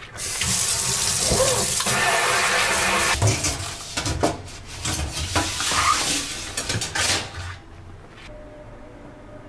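Tap water running into a sink, with knocks and clinks of things being handled under it. The water cuts off about seven and a half seconds in.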